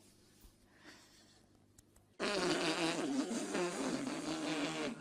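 A long, rasping fart noise lasting nearly three seconds, starting suddenly about two seconds in after near quiet.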